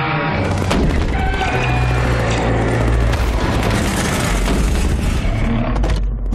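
Movie battle soundtrack: deep rumbling booms and rapid gunfire over orchestral music, dipping briefly near the end.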